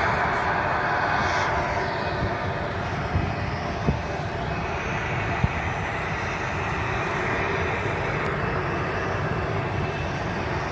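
Jet airliner's engines heard as a steady broad rush that eases slightly after about two seconds, with a few faint short knocks around the middle.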